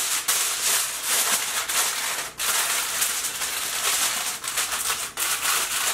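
Sheet of aluminum foil crinkling as it is pressed over a baking tray to cover it: a dense, unbroken run of small crackles.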